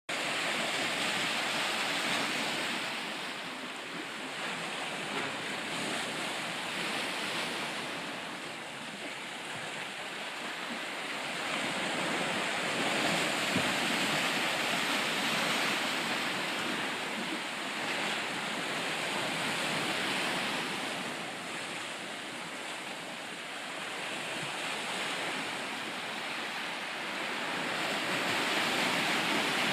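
Ocean surf: waves breaking and washing ashore in a continuous rush that swells and ebbs every few seconds.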